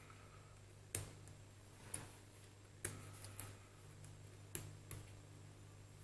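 Sharp, separate clicks and taps from small lathe topslide parts and tools being handled and fitted, about six of them at irregular intervals, roughly once a second.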